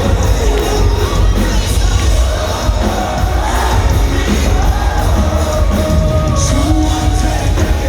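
Live band playing the loud, bass-heavy closing section of a rock/hip-hop song at a concert, with singing and a cheering crowd mixed in.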